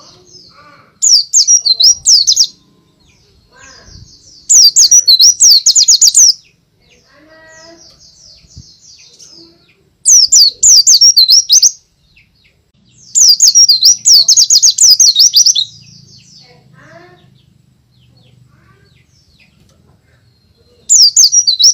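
White-eye (pleci) singing loud bursts of rapid, high-pitched twittering song, five phrases of one to three seconds each with short pauses between, and faint chirps in the gaps.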